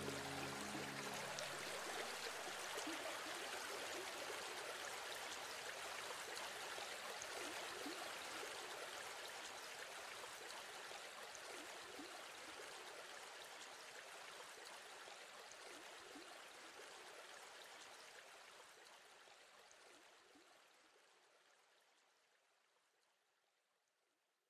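A stream running steadily with small gurgles, fading slowly away to silence near the end.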